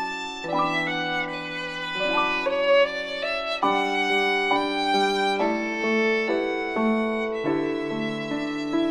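Background music: a violin melody over lower sustained string notes, the notes changing about once a second.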